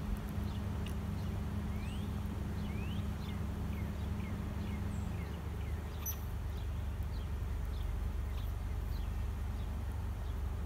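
Steady low outdoor rumble, with a low hum that stops about halfway through. Over it come many short, high chirps, several a second, each gliding up or down.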